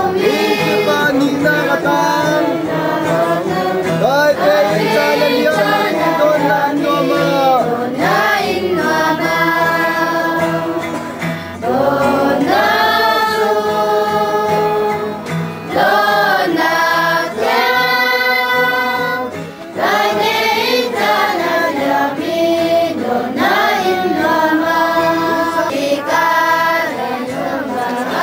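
A crowd of people singing a song together, holding long notes with short breaks between phrases.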